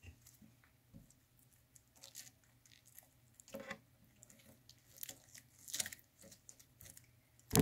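Glitter slime being folded and squished by hand: faint, scattered sticky crackles and little clicks, with one louder sharp click near the end.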